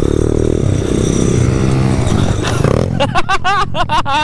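Pit bike engine running, then dropping in pitch as the rider rolls off and slows, fading out about two seconds in. Near the end a person's voice comes in quick, evenly spaced bursts.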